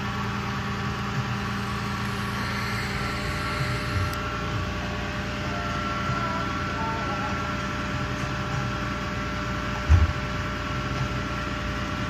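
Flatbed tow truck's engine running steadily at a low, even hum, with one short low thump about ten seconds in.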